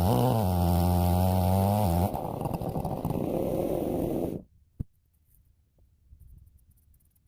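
Two-stroke Stihl 070-clone chainsaw on an Alaskan mill running steadily. It drops much quieter about two seconds in, then is shut off suddenly about four and a half seconds in, followed by a single click.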